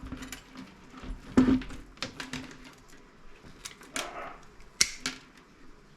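Irregular knocks and clicks of scrap parts from a dismantled CRT monitor being handled and set down on a workbench, the loudest knock about a second and a half in and a sharp click near the end.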